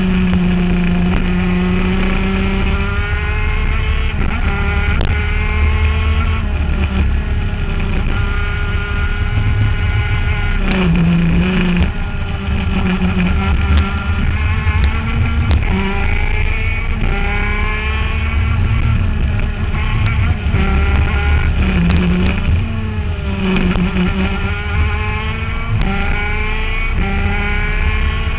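Two-stroke engine of an ICC 125 shifter kart, heard onboard, revving up through the gears in repeated rising climbs that break off at each shift. The pitch drops lower about 11 seconds in and again around 22 to 24 seconds in, as it slows and is downshifted before climbing again.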